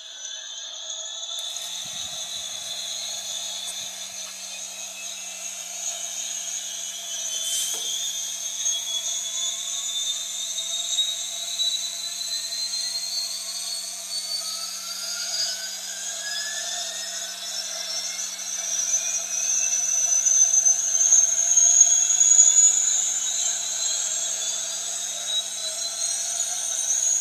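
Small DC motor spinning the rotor of a homemade toy helicopter, a high whine that climbs slowly and steadily in pitch as the motor speeds up and grows louder toward the end.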